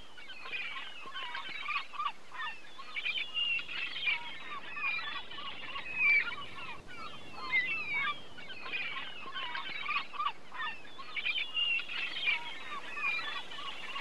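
A large flock of birds calling, with many short chirps and cries overlapping in a steady chatter.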